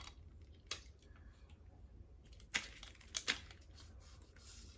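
A few short, sharp clicks and light handling noise from a plastic selfie-stick tripod being handled, with a pair of clicks close together a little past the middle.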